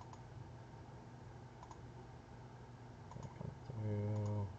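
Sparse computer-mouse clicks, about four: single clicks, then a quick pair, as points are placed on a spline in a CAD program. Near the end comes a held, steady-pitched hesitation sound in a man's voice, louder than the clicks.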